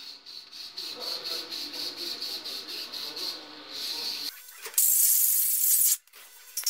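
A rag rubbing back and forth over an aluminium cylinder head in quick strokes. About two-thirds of the way in, an aerosol can gives a hiss of about a second that cuts off sharply: acetone being sprayed to degrease the head before welding.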